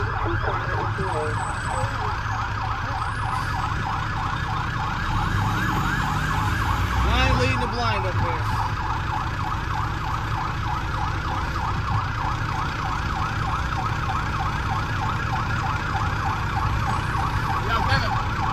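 Fire truck's electronic siren in a fast yelp, heard from inside the cab over the steady low running of the truck's Detroit Diesel Series 60 engine. A separate gliding tone cuts in briefly about seven seconds in.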